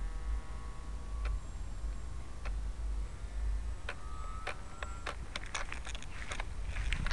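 Faint steady whine of a small RC flying wing's brushless electric motor and propeller, fading early and returning briefly about four seconds in, over low wind rumble on the microphone. Sharp clicks grow more frequent from about four seconds in.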